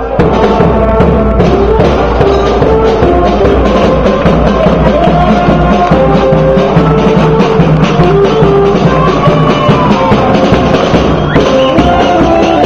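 Charanga brass band playing a lively tune: trumpets carrying the melody over a bass drum and percussion, loud and close. The music jumps abruptly about 11 seconds in.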